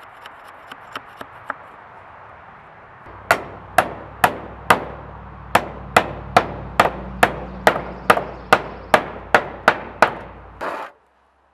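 Hammer driving nails into wood: a few light setting taps, then a steady run of about seventeen hard blows, a little over two a second.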